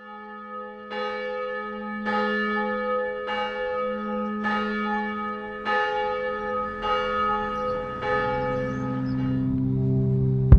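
A single church bell tolling, struck seven times at about one stroke a second, each stroke ringing on into the next over a steady low hum.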